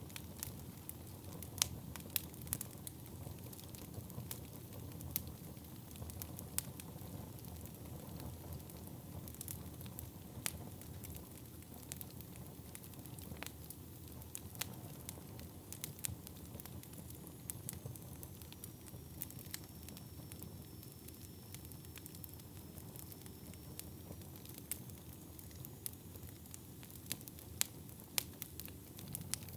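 Wood fire burning in a fireplace: a steady low rumble of flames with irregular sharp crackles and pops throughout.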